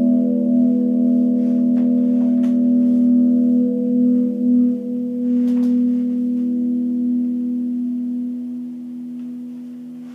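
A single held musical tone with steady overtones, ringing evenly and then slowly fading over the last couple of seconds, with a few faint clicks.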